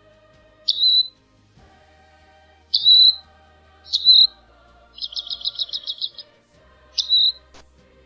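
A bird calling: four sharp, high calls that each slide quickly downward, and a rapid, evenly pulsed trill of about ten notes in the middle, over faint background music.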